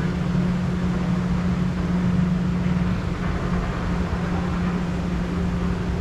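River rapids ride machinery running with a steady low hum, over an even wash of moving water.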